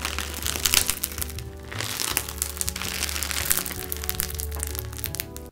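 Crunchy, bead-filled slime squeezed and kneaded by hand, giving a dense crackling, over background music.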